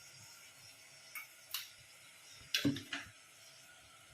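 A few light metallic clinks and taps of a spoon against a cooking pot or spice tin: two soft ones about a second in, then a louder cluster near the middle. They sound over a faint hiss.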